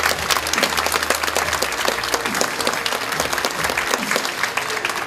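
A large audience applauding, many hands clapping in a dense, steady patter.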